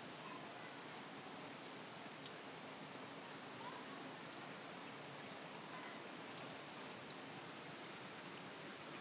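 Steady rushing water noise, an even hiss with no breaks.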